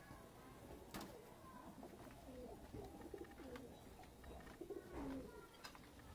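Domestic pigeons cooing faintly, with a sharp click about a second in and another near the end.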